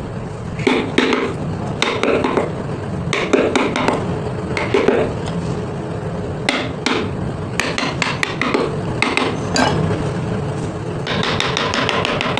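Hammer strikes on a chisel carving a wooden design: irregular taps, often in quick clusters of two or three, over a steady low hum. A denser scratchy noise joins near the end.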